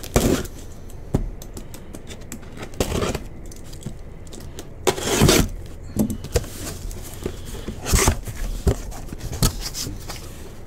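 A cardboard case of trading-card boxes being handled and opened: a run of short cardboard scrapes and rustles, with sharp clicks and knocks between them.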